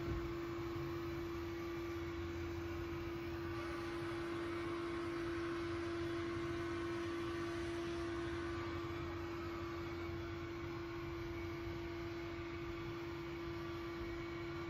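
A steady hum: one constant mid-pitched tone held without change over a low rumble and a faint hiss.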